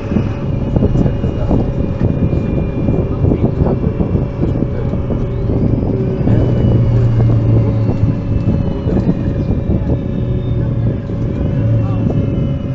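MAN NL223 low-floor city bus heard from inside the passenger cabin while driving: the rear-mounted six-cylinder diesel engine's steady drone, with a whine that rises as the bus accelerates about six seconds in and again near the end.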